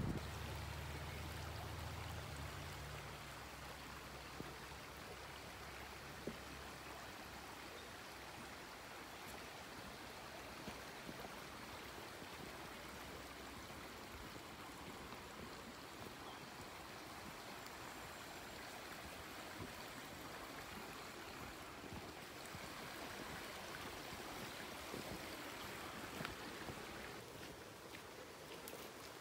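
Running water of a forest stream, a faint steady rushing. A low rumble in the first few seconds fades out.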